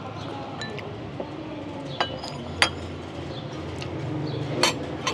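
Eating utensils clinking against bowls and the hotpot: a few sharp clinks, the loudest about two and a half seconds in and near the end, over a low steady hum.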